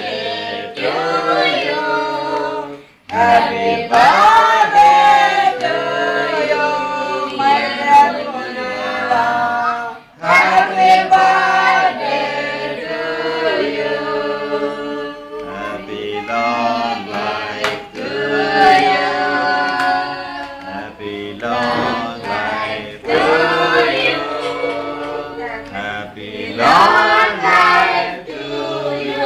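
A group of voices singing a song together, with short pauses between phrases about three seconds in and again about ten seconds in.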